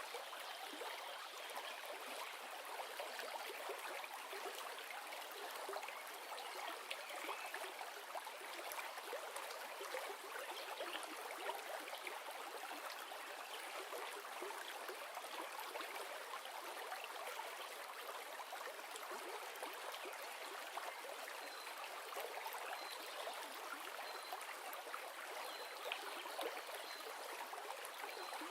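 River water rushing steadily, an even flowing hiss with no low rumble.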